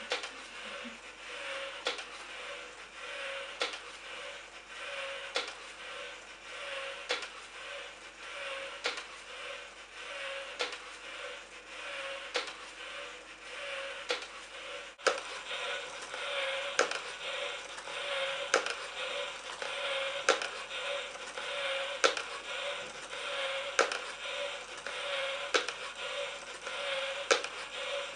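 Small electric motor of a kinetic sculpture running with a light, wavering hum, swinging a plastic strip across a paper sheet on a wooden board. A sharp click or knock comes about every 1.7 seconds, once per swing.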